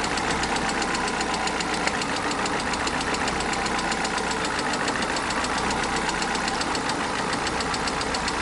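VAZ 1.4-litre 16-valve engine idling with a constant, fast, even knock. The knocking is now always present, the sign of a worn-out engine in need of a rebuild.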